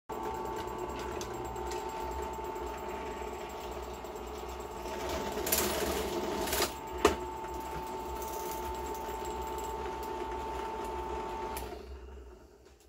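Benchtop drill press running steadily, its bit cutting holes through PVC pipe, louder for about a second and a half around the middle as the bit bites. A single sharp knock a little later, and the motor is switched off near the end and winds down.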